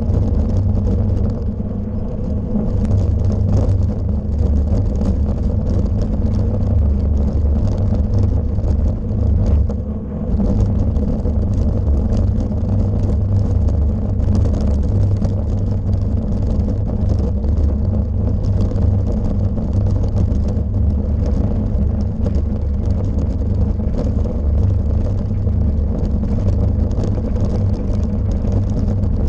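Road bike riding over rough cobblestones (pavé): a loud, steady low rumble with constant clattering as the tyres and frame shake over the stones, heard through a camera mounted on the bike.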